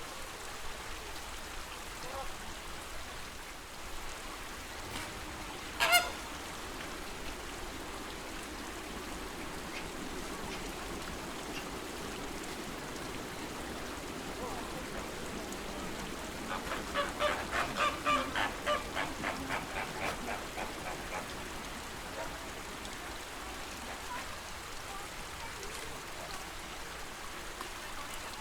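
Flamingos honking over a steady wash of lake water: one sharp call about six seconds in, then a rapid run of honks, about four a second, lasting roughly five seconds after the middle.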